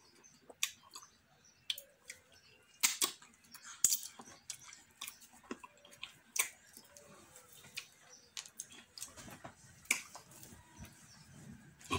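Close mouth sounds of eating fufu with okro and ogbono soup by hand: wet chewing with irregular lip smacks and clicks, a few sharper smacks about three and four seconds in.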